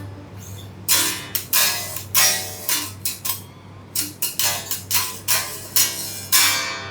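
Custom Aristides T/O electric guitar strummed, about a dozen sharp chord strums and picked notes ringing briefly one after another, over a steady low hum.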